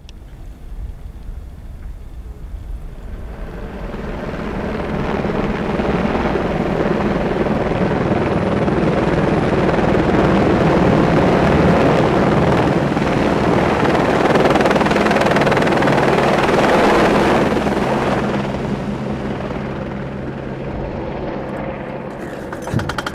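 Helicopter flying in close overhead with a load slung beneath it on a cable. The rotor and engine noise builds over the first few seconds, stays loud through the middle while the load is set down, then fades near the end.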